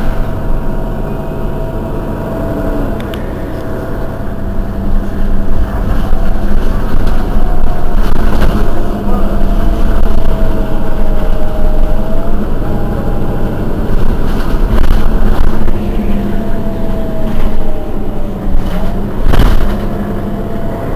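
Mercedes-Benz Citaro Facelift city bus idling at a stop: a steady low engine drone with a whine that wavers slightly in pitch, getting louder from about six seconds in.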